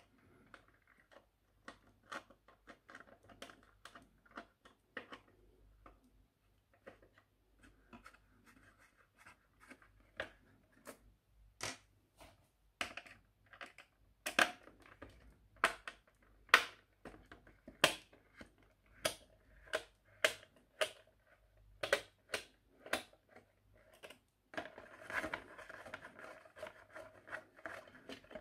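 Small screwdriver working the screws that fix a diecast model car to its cardboard box insert: a scatter of sharp clicks and scratches of metal on metal and cardboard. A longer scraping rustle near the end.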